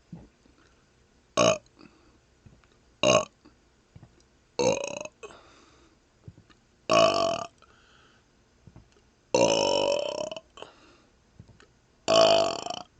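A man burping six times in a row, separated by pauses. The first two are short, and the later ones are longer and drawn out; the longest comes a little past the middle and lasts over a second.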